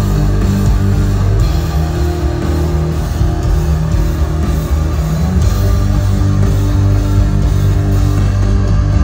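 Live rock band playing loudly over an arena PA, with electric guitars and a heavy, sustained bass, heard from within the audience.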